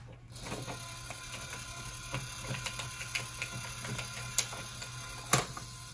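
LEGO EV3 motor running, its plastic gearing drawing a dollar bill into the bill acceptor of a LEGO vending machine: a steady whir with many small clicks, starting just after the bill is fed in. Two sharper, louder clicks come near the end.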